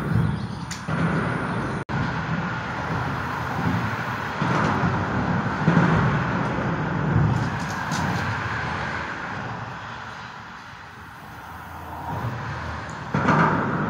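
Road traffic crossing the bridge overhead: a steady rush of tyres and engines that swells and fades as vehicles pass, ebbing low near the end before rising again.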